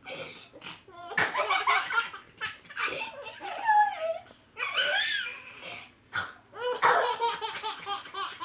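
A baby laughing hard in repeated fits of high-pitched belly laughs, broken by short pauses.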